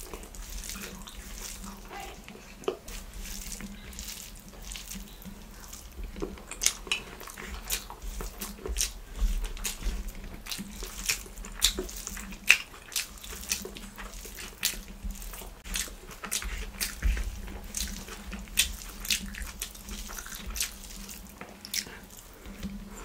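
Close-miked eating sounds: wet chewing and lip smacks while fingers mix minced kothu parotta on a banana leaf. Sharp wet clicks come irregularly, a few each second.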